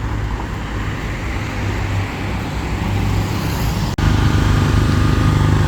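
Road traffic rumbling by on a city street. About four seconds in the sound breaks off sharply, and a steady engine hum at one pitch follows, like a vehicle idling close by.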